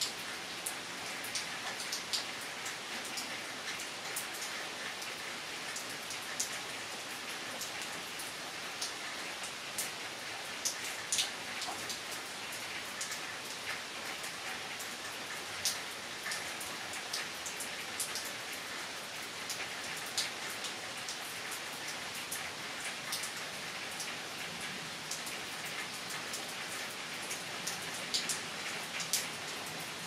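Steady rain falling: an even hiss dotted all through with frequent sharp taps of single drops landing close by.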